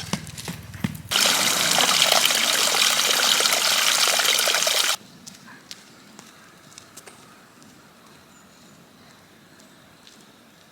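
Water running for about four seconds, starting and stopping suddenly, followed by a quiet stretch with a few faint clicks.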